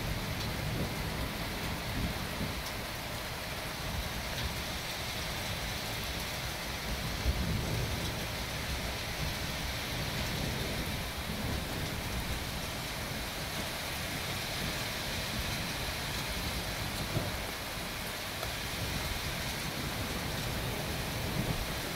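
Steady rain hissing during a thunderstorm, with low rolls of thunder rumbling and fading underneath. A short louder peak comes about seven seconds in.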